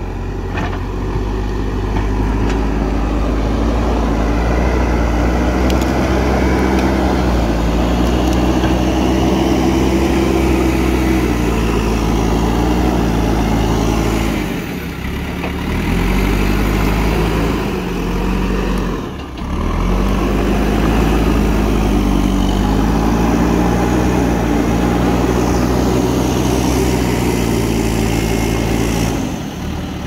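JCB backhoe loader's diesel engine running hard, its pitch rising and falling as the front loader bucket pushes into roots and brush. The sound drops briefly twice in the middle.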